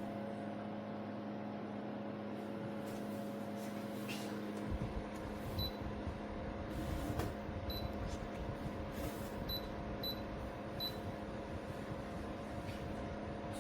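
A steady mechanical hum with a few short, high beeps in the middle.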